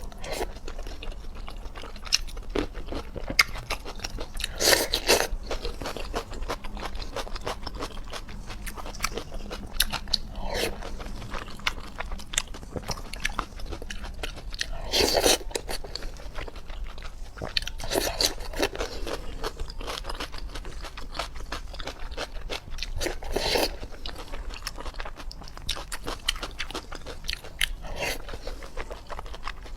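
A person eating close to the microphone: biting and chewing with crunching, and several louder bites spread through.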